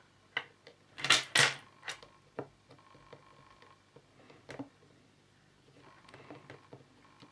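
Multimeter test probes clicking and tapping against a small circuit board's components as the capacitors are probed one by one: a scatter of light clicks, with two louder knocks close together about a second in.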